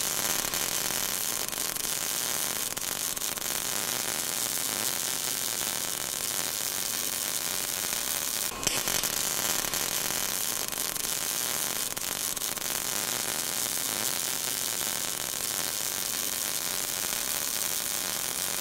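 Steady hiss of a welding arc, with a single click about eight and a half seconds in.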